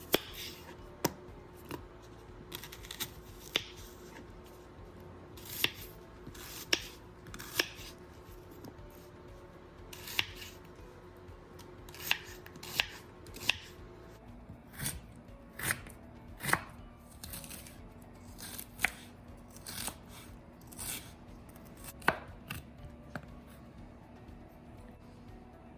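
Knife chopping on a cutting board: single sharp strokes at an irregular pace, roughly one a second at most, over a faint steady hum.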